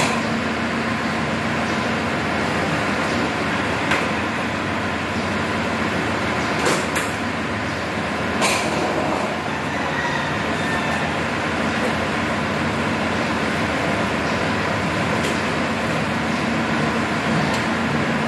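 Steady background hum with a few sharp knocks: the bifold shutter panels clacking against each other as they are folded open, about four seconds in and twice more a little later.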